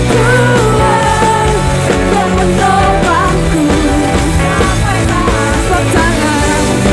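Live church worship band playing a rock-style praise song, with a sung melody over a steady beat and bass.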